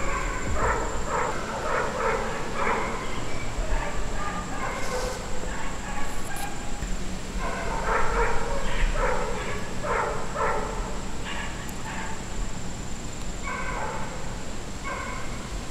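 A dog barking, short barks in bouts of several with pauses between.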